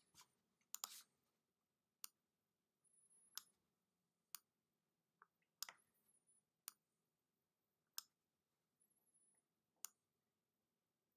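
Faint computer mouse clicks, about ten short sharp clicks spaced unevenly, with two soft brushing noises between them.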